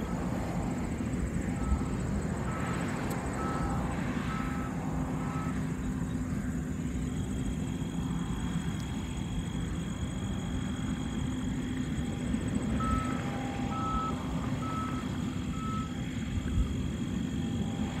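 Steady engine drone with two runs of four or five evenly spaced electronic warning beeps, the first about two seconds in and the second about thirteen seconds in.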